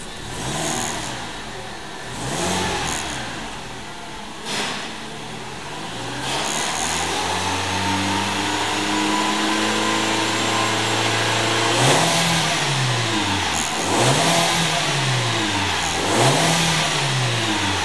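2006 Audi A3's 1.6-litre petrol four-cylinder engine being revved while the car stands still. Two short blips come first, then the revs are held at about 3,000 rpm for several seconds, then three more quick revs rise and fall.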